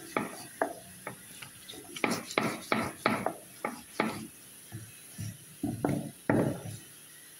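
Fried garlic and cumin being crushed and ground on a flat grinding stone with a hand-held grinding stone (Nepali silauto and lohoro): a run of stone-on-stone knocks and rubs, about two a second, stopping near the end.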